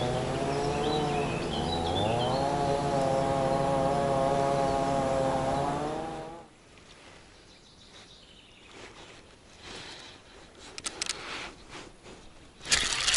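An engine drones steadily with a wavering pitch, then cuts off suddenly about six seconds in. After a quiet stretch with scattered small clicks, a spinning reel is cranked near the end with a fast rattling whir.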